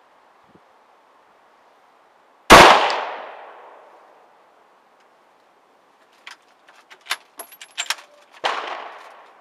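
A CZ 750 bolt-action sniper rifle in 7.62 NATO fires one loud shot about two and a half seconds in, the report dying away over about a second and a half. Near the end the bolt is worked with a quick series of metallic clicks, followed by a second, quieter shot.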